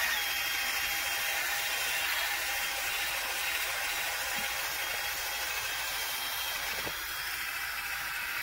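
DeWalt cordless drill running steadily at low speed, spinning a wool polishing pad against a plastic headlight lens coated in polishing compound. A steady whirring hiss with a faint motor whine starts at once and does not change.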